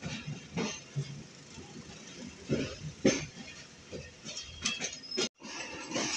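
Passenger train coach running along the track, heard from the window and doorway: a steady rolling rumble broken by irregular clacks of the wheels over rail joints. The sound drops out for a moment about five seconds in.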